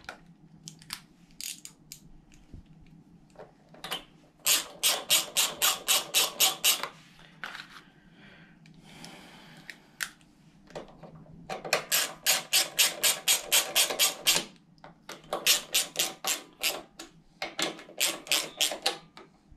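Hand socket ratchet clicking in four quick runs, with pauses in between, as it tightens the two 10 mm bolts that hold a mower's air box onto the carburettor. A few loose clicks come before the first run.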